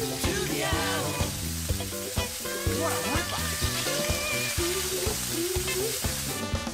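Battered pork loin cutlets deep-frying in a wok of hot oil: a steady, dense sizzle. Background music plays over it.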